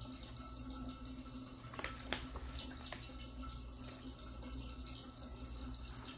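Faint handling of a picture book's paper pages as a page is turned, with a few soft ticks about two to three seconds in, over a low steady room hum.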